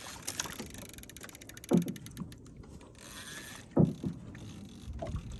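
Okuma Cavalla 5n overhead jigging reel being cranked under load against a hooked fish, its gears giving a fast, fine clicking. Two short, louder sounds with a falling pitch come about two seconds apart.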